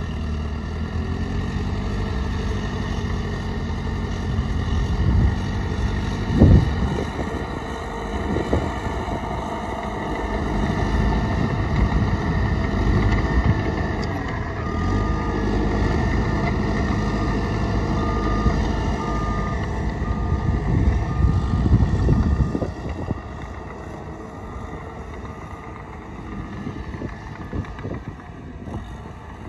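Heavy diesel earthmoving machinery running with a deep engine rumble, a loud knock about six seconds in. From about halfway through, a reversing alarm beeps about once a second, and the engine noise drops off in the last few seconds.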